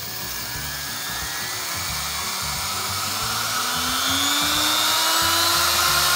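Porter-Cable router acting as a CNC mill's spindle, just switched on and spinning up. Its high whine rises steadily in pitch and grows louder. The speaker calls it pretty scary sounding.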